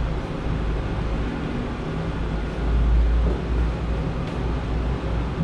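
Steady low rumble with a hiss of background noise, swelling slightly about three seconds in.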